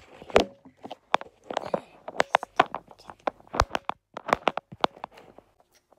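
A camera or phone being handled, its microphone picking up an irregular run of knocks, taps and rubbing as it is grabbed and moved. The handling stops shortly before the end.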